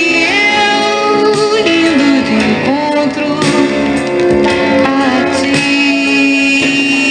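A Brazilian pop ballad played from a vinyl record: guitar accompaniment under a gliding melody line, with a long held note over the second half.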